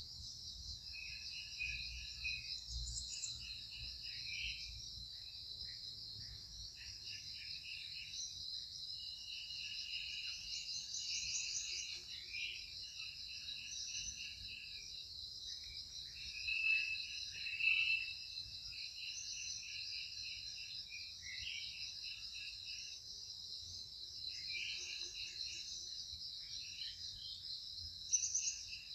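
Steady, high-pitched insect chorus of crickets or cicadas, with short chirping calls coming and going over it.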